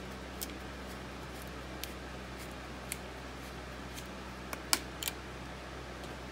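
Plastic screw cap being twisted off a quart bottle of motor oil: a few small scattered clicks, then a sharper cluster of clicks about four and a half seconds in as the cap comes loose. A steady low hum runs underneath.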